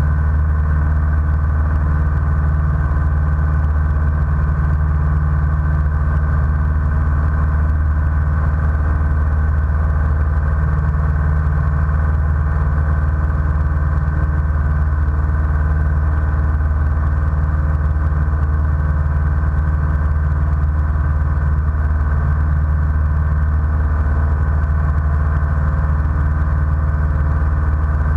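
Light aircraft's piston engine and propeller running at a steady drone, heard from inside the cockpit, with no change in power.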